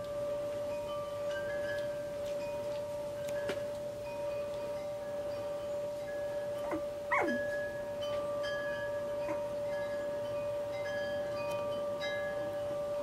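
Ambient background music: one held drone note with scattered, chime-like notes ringing at different pitches over it. About seven seconds in, a brief squeak slides steeply down in pitch and is the loudest moment.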